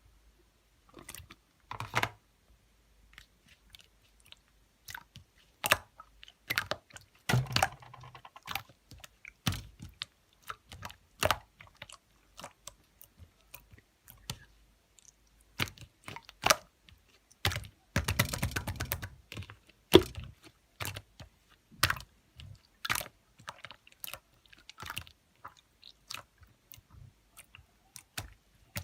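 Snowflake slime being squeezed and worked by hand, giving irregular clicks, pops and crunchy crackles, with two longer runs of rapid crackling, about a quarter of the way in and again past halfway.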